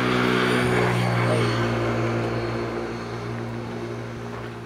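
A steady engine hum at a constant pitch, growing louder over the first second or two and then slowly fading.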